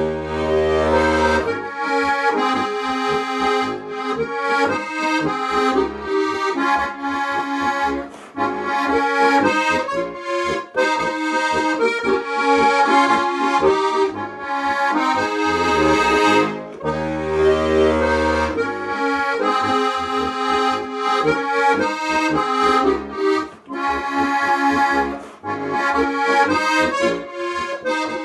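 Solo accordion playing a Bohemian polka: a melody in chords over bass notes. Long low bass notes are held briefly at the start and again about halfway through.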